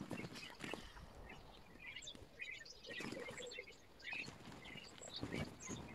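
Vinyl inflatable being squashed flat under a person's weight, with the sound sped up ten times: a fast jumble of short high chirps and squeaks over rustling and soft knocks.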